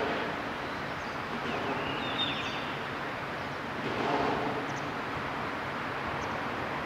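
Steady rush of noise from the large car ferry Suzuran passing close by, swelling slightly about four seconds in, with a few brief high bird chirps around two seconds in.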